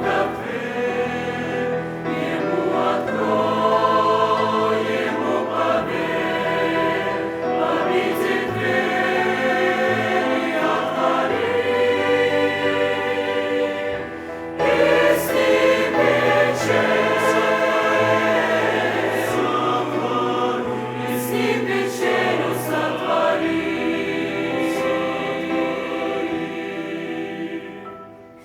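Church choir singing a Russian-language hymn in sustained chords, with a short break between phrases about halfway through and the sound fading away near the end.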